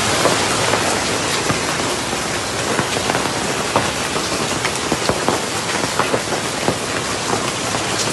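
Hail and heavy rain pelting down: a dense, steady hiss broken by many sharp clicks of hailstones striking hard surfaces.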